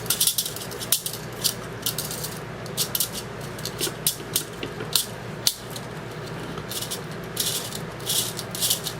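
Main feed spring of a polymer airsoft mid-cap magazine being worked around inside its body: irregular scratchy rattles of metal spring on plastic, with a couple of sharp clicks.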